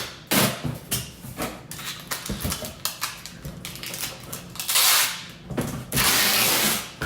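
Cardboard moving boxes and packing material being handled: a run of short scrapes and rustles, with two longer, louder hissing tears about five and six seconds in.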